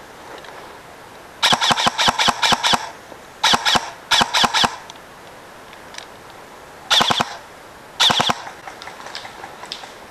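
Airsoft electric rifle, a Dytac LVOA M4 SBR with a Gate Titan trigger unit, firing rapid bursts of BBs: a long burst, two shorter ones, then two more short bursts after a pause.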